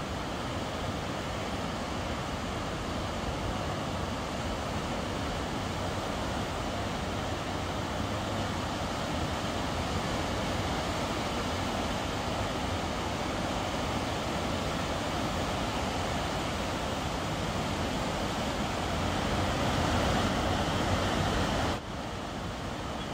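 Steady roar of the flooded Kennebec River's high water rushing over a dam spillway and churning in whitewater. It grows a little louder near the end, then drops suddenly about 22 seconds in.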